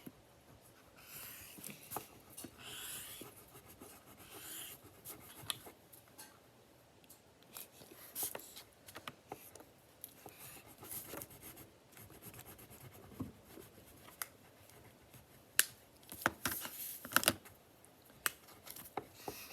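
Paper-craft handling on a table: scratching and rubbing on paper with scattered clicks, a cluster of sharper clicks near the end.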